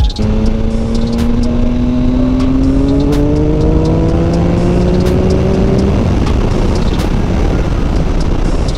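Triumph Speed Triple 1050's inline three-cylinder engine pulling hard through one gear, its pitch climbing steadily for about six seconds. After that it gives way to a steady rush of wind and road noise.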